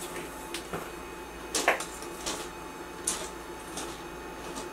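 A person getting up from a mesh office chair and moving away: a few light knocks and rustles, the loudest about a second and a half in, over a steady background hum.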